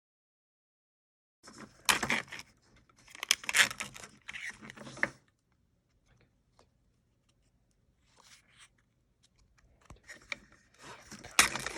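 Packaging being torn open and crinkled by hand, in crackly bursts that start after a moment of silence, pause in the middle and pick up again near the end.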